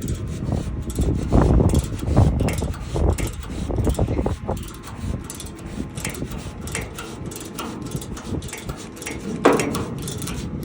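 Steel tap being turned by hand with a ratcheting 1/4-inch service wrench to recut stripped threads in a flame-rod port: irregular clicks and short metal-on-metal scrapes over a steady low rumble.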